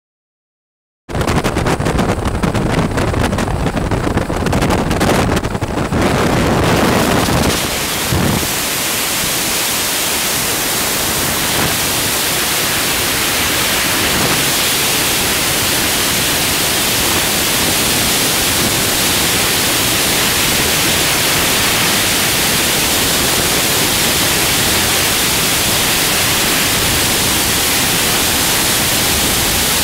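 Rushing freefall wind on the camera's microphone, a loud, steady hiss that cuts in suddenly about a second in, rougher for the first several seconds and then even.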